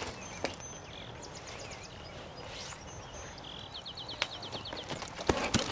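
A songbird singing against quiet outdoor background noise: two short runs of rapid, repeated high notes, one about a second in and one near four seconds in. Near the end, a horse's hooves start striking the arena dirt.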